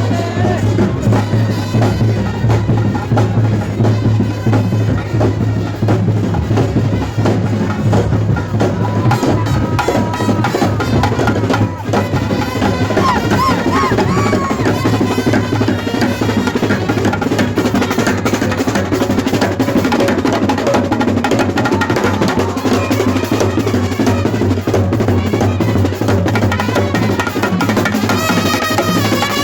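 Chenda drums played in a fast, dense, continuous roll over a steady low hum.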